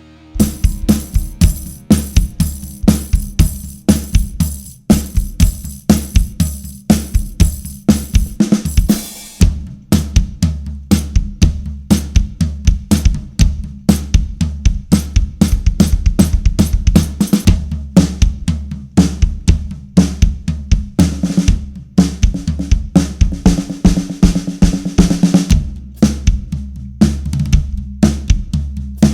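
Drum kit played in a steady groove, with the snare drum and floor tom fitted with Big Fat Snare Drum dampening pads for a short, fat sound, under hi-hat and cymbals. A quick run of close hits comes about nine seconds in, and more cymbal wash follows.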